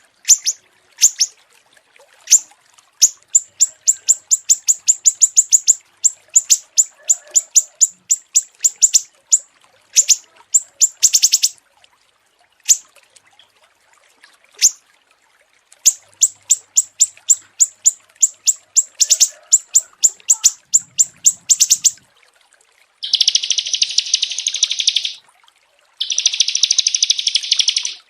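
Small songbirds calling: rapid runs of sharp, high chirps at several per second, broken by short pauses, then near the end two dense buzzing trills of about two seconds each.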